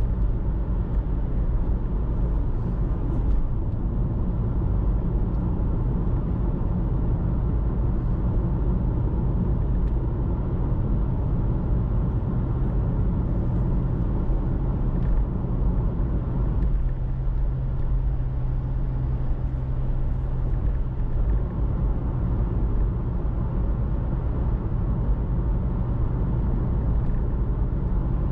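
Car driving on city streets: steady low rumble of engine and road noise, with a slight shift in the low hum about two-thirds of the way through.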